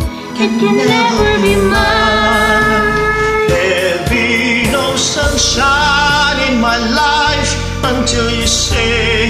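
Slow ballad karaoke backing track with a man singing over it.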